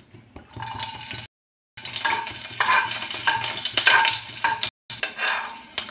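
Garlic cloves and green chilli pieces sizzling as they fry in hot oil in a kadhai, with a metal spoon stirring and scraping against the pan in repeated strokes. The sound drops out to silence twice, briefly.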